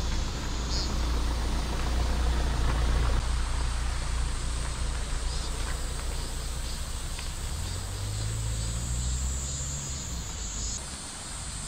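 Low engine rumble of a vehicle, its pitch rising a little about two-thirds through and then easing, over a steady high-pitched drone of summer insects.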